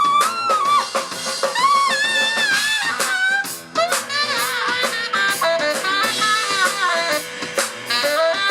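Live band music: a saxophone playing a solo melody over a drum kit.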